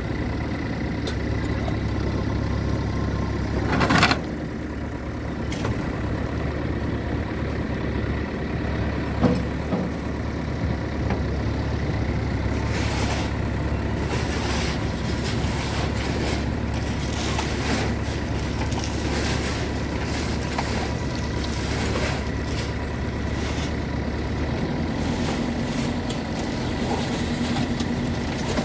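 JCB 3DX Xtra backhoe loader's diesel engine running steadily while the backhoe bucket digs into gravelly soil, with many short scrapes and clatters of stone. A brief loud noise comes about four seconds in, and near the end the engine's note shifts.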